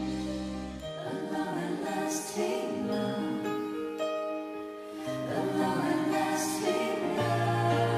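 Slow Cantonese pop ballad performed live: a female singer ends a line on a held note over the band, and the accompaniment carries on in a quiet instrumental passage before the next verse.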